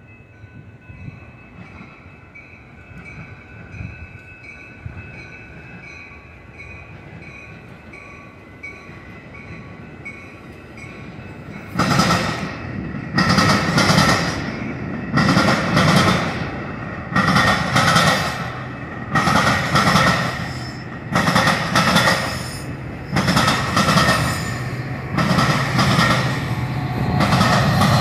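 Metra commuter train passing close by: its bilevel coaches' wheels rumble and clatter in a loud burst about every two seconds as each car's wheel sets go by. For the first twelve seconds, before the cars arrive, a grade-crossing bell rings about twice a second over a faint, slowly rising rumble.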